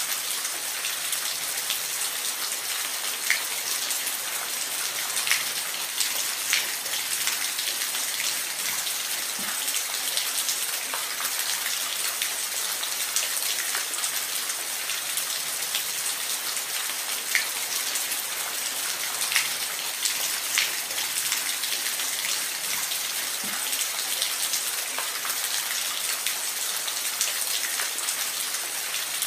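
Steady hiss of falling water, with scattered sharp drops splashing now and then.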